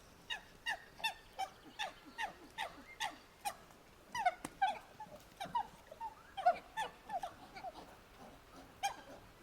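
Monkey calling: a steady run of short calls that fall in pitch, about two or three a second, then a more irregular flurry of calls in the middle, and one more call near the end.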